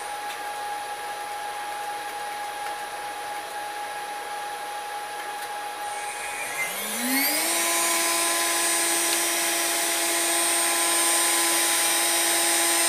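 VFD-driven CNC router spindle running at about 10,000 RPM, then, about six seconds in, ramping up in a rising whine over a second or so to about 20,000 RPM and holding steady there. The speed change follows a new spindle speed command.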